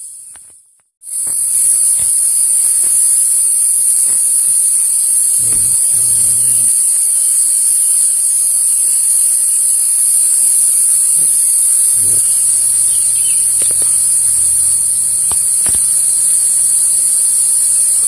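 Loud, steady, high-pitched drone of a forest insect chorus, starting about a second in after a brief gap.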